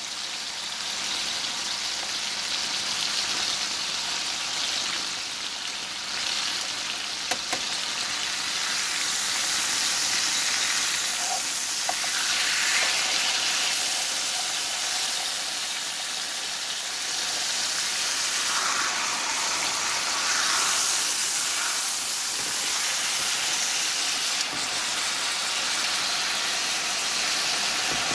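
T-bone steaks sizzling in hot oil in a nonstick frying pan: a steady frying hiss that swells and eases a little, with a few brief clicks.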